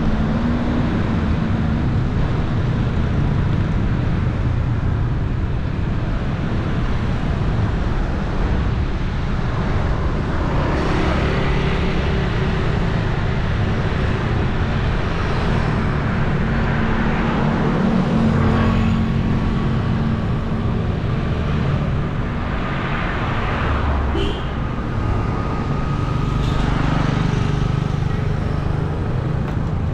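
Road traffic: cars, minivans and motorbikes passing on a wet street, over a steady low rumble, with several vehicles swelling louder as they go by.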